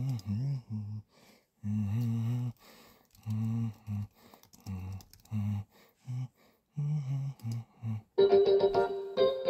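A low voice humming a tune in short, separate notes. About eight seconds in, music with keyboard-like chords starts playing.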